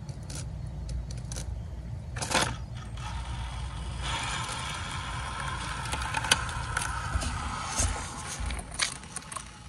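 Small-scale RC rock crawler's electric drivetrain whirring as it climbs over rock, louder from about four seconds in, with sharp clicks and scrapes of its tyres and chassis against the stone.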